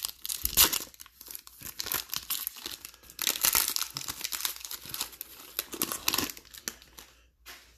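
Foil wrapper of a Prizm basketball trading-card pack being torn open and peeled back by hand: crackly ripping and crinkling, dying away near the end.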